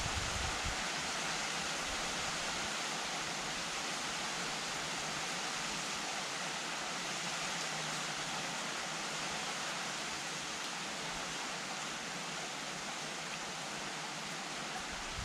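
Steady rain falling, an even hiss that holds at the same level throughout. A low rumble fades out in the first second.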